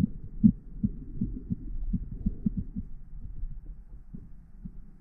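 Muffled, irregular low thumps and water movement heard through an action camera's waterproof housing underwater. The thumps are densest in the first three seconds and fade afterwards.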